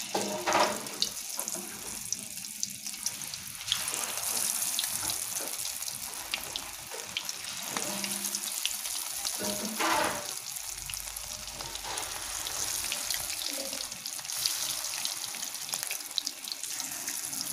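Pieces of egg-and-cornflour-battered chicken deep-frying in hot coconut oil in an iron kadai: a steady sizzle with many small crackling pops as the pieces go into the oil.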